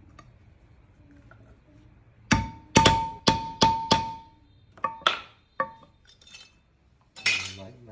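Repeated hard metal strikes, each with a short bright ring: five in quick succession, about two and a half a second, then three lighter ones and a last, duller scraping blow near the end.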